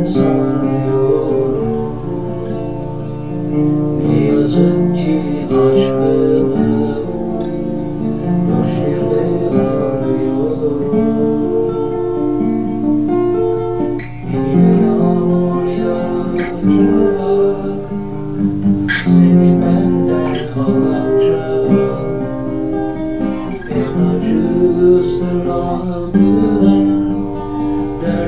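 Acoustic guitar played solo, picked notes with bass and melody lines in an instrumental passage.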